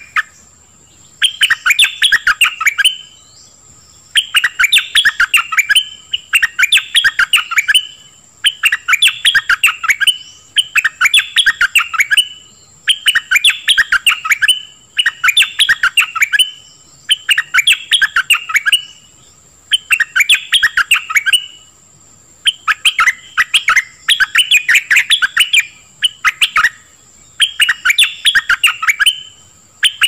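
Stripe-throated bulbul singing: short phrases of rapid, quick-changing notes, repeated roughly every two seconds with brief pauses between them.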